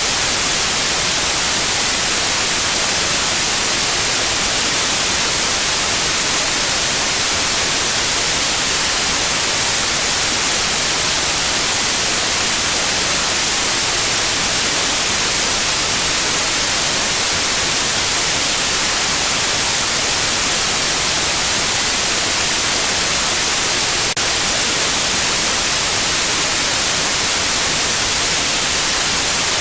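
Synthetic white noise hissing steadily, overlaid with a pure high-pitched 9645 Hz tone for tinnitus sound therapy. The tone cuts out about 19 seconds in, leaving the hiss alone, and comes back near the end.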